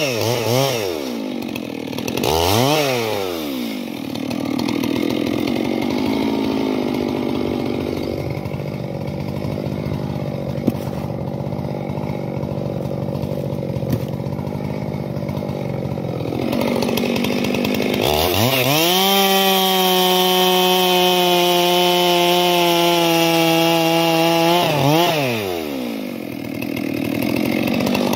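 Stihl 441 C-M Magnum two-stroke chainsaw bucking firewood rounds: a couple of quick throttle blips, then a long stretch running under load in the wood. It then revs up to a steady high pitch for several seconds and drops back to idle near the end.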